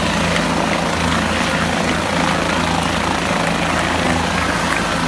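Medical helicopter sitting on the ground with its engine and rotor running, a loud, steady drone that doesn't change.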